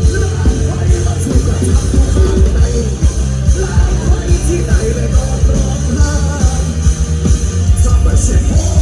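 Live rock band playing loud through a big concert sound system, with heavy bass and pounding drums.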